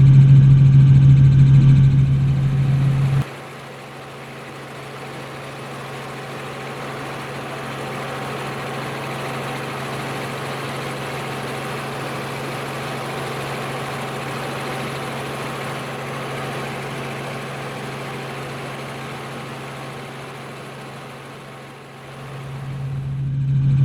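Helicopter noise heard from on board: a loud steady low drone with an engine hum. About three seconds in it cuts out suddenly, leaving a quieter, even rushing hiss. The drone swells back in near the end.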